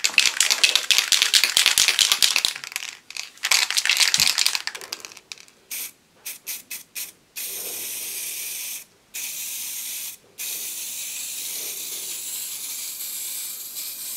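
Aerosol can of stove enamel shaken hard, its mixing ball rattling fast for about five seconds, then sprayed: a few short spurts, followed by long steady bursts of hissing spray with two brief breaks.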